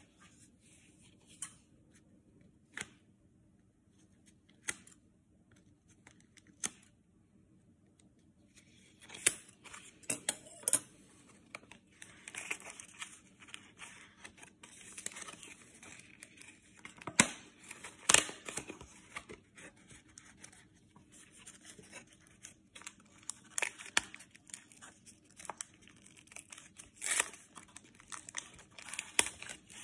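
Small pieces of blue painter's tape being peeled off a folded paper sheet, with paper crinkling and rustling. A few scattered clicks at first, then from about nine seconds in a near-continuous run of tearing and crinkling with sharp rips.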